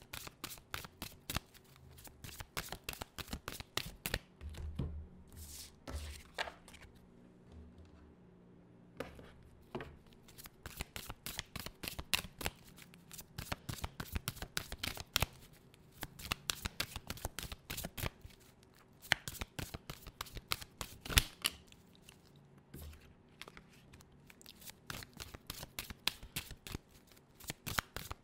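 Tarot deck being shuffled by hand: a long run of quick papery clicks and flutters of cards against each other, with a brief lull about eight seconds in.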